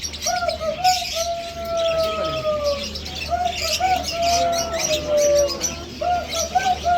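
Caged birds calling. One bird repeats a phrase about every three seconds: two short notes, then a long whistled note that falls slightly. Many small birds twitter and chirp over it.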